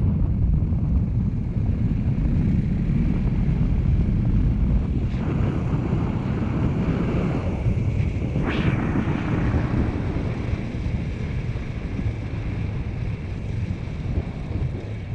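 KTM 500 motorcycle's single-cylinder engine running on the move, with heavy wind rumble buffeting the microphone, easing off a little near the end.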